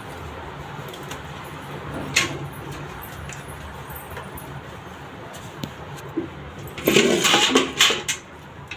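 Water poured over a Labrador puppy's wet coat during a bath, running off onto a concrete floor, with a knock about two seconds in and a louder burst of splashing about seven seconds in.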